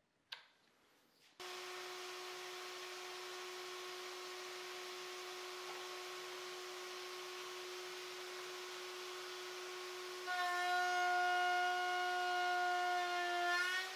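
A table-mounted router with a dovetail bit starting up about a second and a half in and running at a steady high whine. About ten seconds in, the bit cuts a dovetail slot in a wooden board and the sound grows louder and richer, sagging slightly in pitch under the load near the end before running free again.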